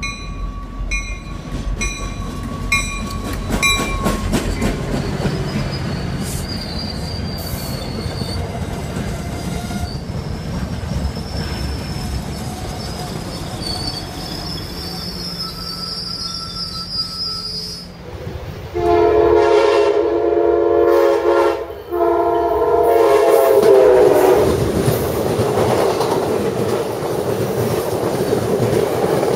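Passenger train rolling past with rumble, clickety-clack and high wheel squeal from the coaches, with a repeated ringing about twice a second for the first few seconds. About nineteen seconds in, a locomotive horn sounds two long blasts, the loudest part, then the rolling of the train carries on.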